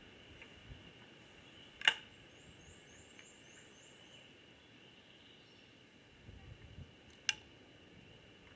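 Two sharp clicks about five seconds apart, the first louder, over a faint steady high-pitched background drone. Between them, a short series of rapid high chirps.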